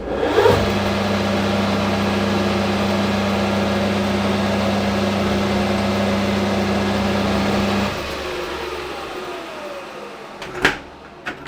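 Hafco AL960B metal lathe switched on in reverse, running steadily with a strong motor hum, then switched off about eight seconds in and spinning down with falling pitch. A single clunk near the end.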